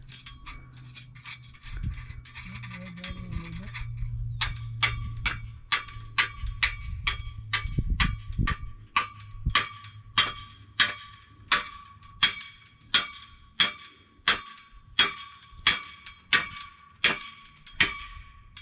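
Metal being struck with a hammer, about twenty evenly spaced blows at roughly three every two seconds, each leaving a short metallic ring. The blows start about four seconds in, after a low hum with faint tapping.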